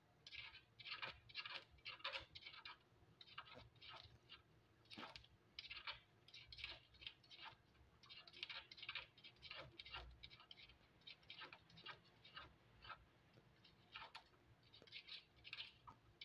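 Pet hedgehog moving about on newspaper: a faint, uneven run of quick scratchy rustles, several a second, as its feet and snout scrape the paper.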